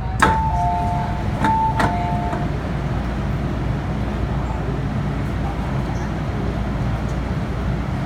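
MTR M-Train car running with a steady low rumble. In the first two seconds an electronic two-note falling chime sounds twice.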